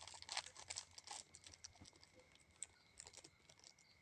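Faint scattered clicks and crinkles of a small lavalier microphone and its accessories being handled, busiest in the first second. A faint steady high whine runs underneath.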